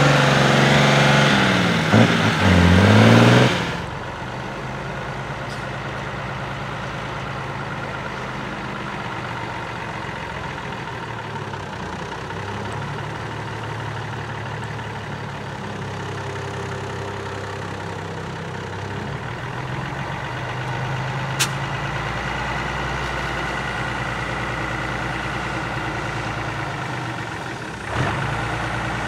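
Off-road trial truck diesel engines. First a loud engine working hard up a slope, its pitch dipping and rising again about two to three seconds in. Then it cuts off suddenly and a second truck's engine runs steadily at low revs while the truck crawls through a deep rut, with one short click about three quarters of the way through.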